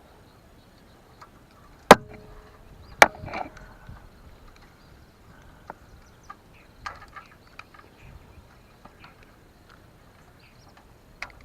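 Two sharp knocks about a second apart, each with a brief metallic ring, then scattered light clicks of tools and small parts being handled.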